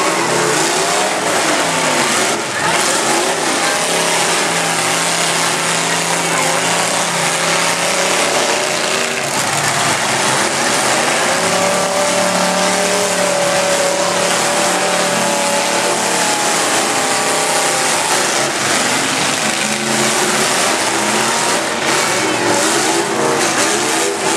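Several demolition derby cars' engines running and revving together, loud, with many overlapping engine pitches rising and falling.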